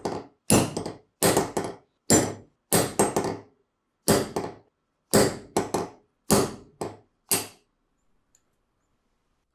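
Hammer blows on a steel pin punch driving the rusted pivot pin out of an old pair of pliers: about eleven sharp metallic strikes, some followed by a quick lighter rebound tap, spaced half a second to a second apart and stopping about seven and a half seconds in.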